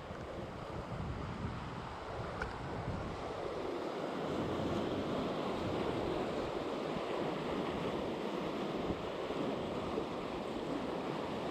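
Sea surf washing steadily against the rocks, with some wind on the microphone.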